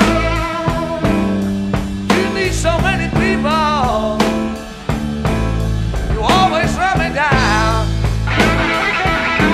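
Blues-rock band playing an instrumental passage: lead electric guitar bending notes over bass and a steady drum beat.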